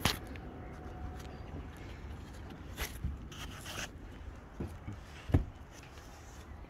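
Handling and climbing noise on the timbers of a derelict wooden boat: scrapes and rustles with a few sharp knocks, the loudest about five seconds in.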